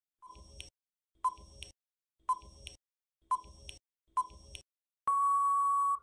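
Quiz countdown-timer sound effect: five short ticking pips about a second apart, then one steady beep about a second long that marks time running out.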